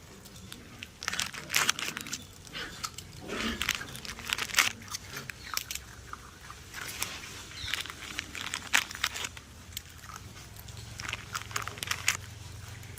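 Puppies chewing and scuffling: an irregular run of crunchy clicks and crackles.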